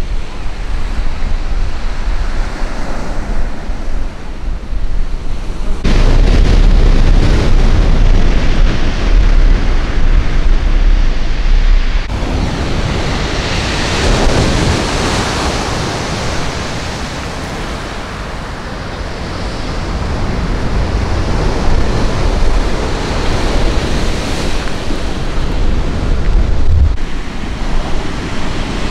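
Sea waves breaking and washing on the beach, with wind buffeting the microphone as a heavy low rumble. The sound changes abruptly about six and twelve seconds in and again near the end, and a wave swells loudest about halfway through.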